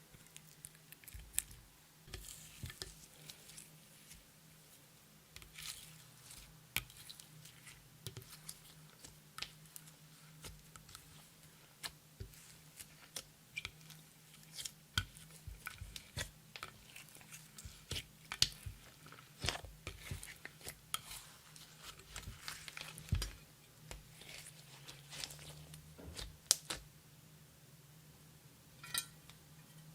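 Clear slime being worked by hand: irregular sticky clicks, pops and crackles, with a quick run of ticks near the end, over a faint steady hum.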